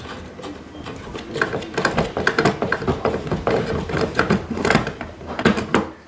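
Brass hardline pin connector being screwed by hand into the threaded side port of a metal line extender housing: a quick, irregular run of small metallic clicks and scrapes from the threads, stopping just before the end.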